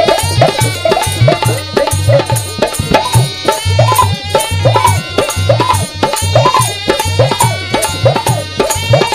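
Mewati folk instrumental lehra: a been (snake-charmer's reed pipe) plays a gliding, repeating melody over a fast, steady hand-drum rhythm.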